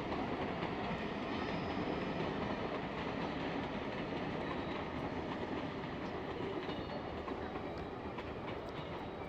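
A train running past, a steady noise that slowly fades toward the end.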